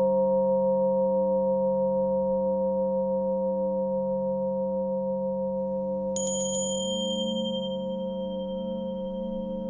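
Tibetan singing bowls ringing in a long, slowly wavering tone that gradually fades; about six seconds in, a small high-pitched bell is struck and rings on over it.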